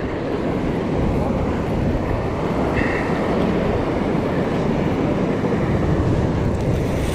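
Steady wind buffeting the microphone over surf washing against the rocks, with a brief faint high tone about three seconds in.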